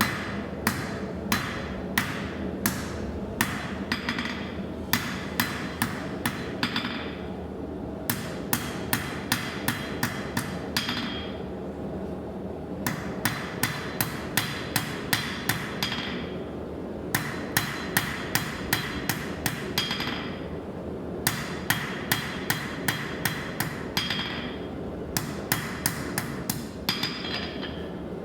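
Blacksmith's hammer striking metal on an anvil by hand, in runs of quick, even blows about three a second with a bright ring, broken by short pauses between runs. A steady low rumble runs underneath.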